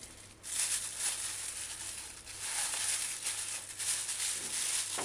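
Plastic cling film crinkling and rustling as it is peeled off a foam tray of raw chicken gizzards, in uneven bursts with brief pauses about a third of a second and two seconds in.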